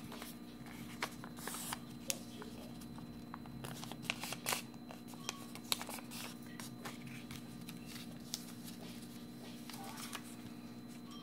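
Sheet of origami paper being folded and creased by hand: irregular crisp rustling and crackling with a few sharper snaps, the loudest about two, four and a half and six seconds in. A steady low hum runs underneath.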